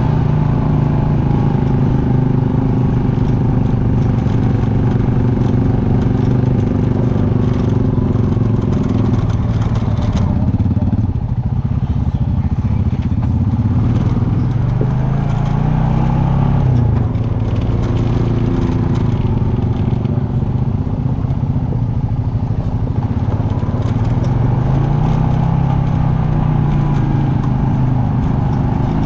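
ATV engine running under way on an off-road ride, its pitch falling and rising several times as the throttle is eased off and opened again.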